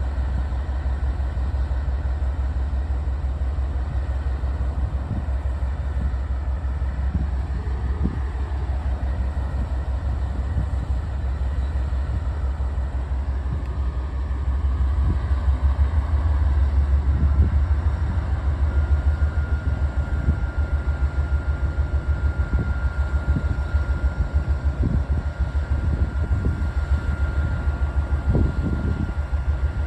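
Louisville & Indiana Railroad train running: a steady low rumble with scattered knocks, louder around the middle. A little past halfway a thin, steady high whine comes in and holds.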